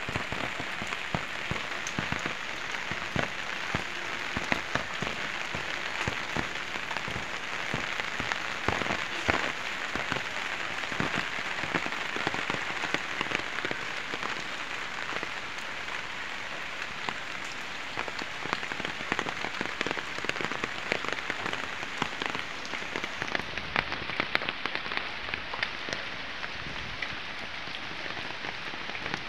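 Steady rain falling on garden plants, with many separate drops heard hitting the leaves.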